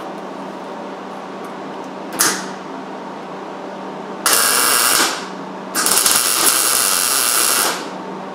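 Welding arc on the steel roll-cage tubing, run in three bursts of hiss: a short tack about two seconds in, then a bead of about a second and another of about two seconds, each cutting off sharply. A steady low hum runs underneath.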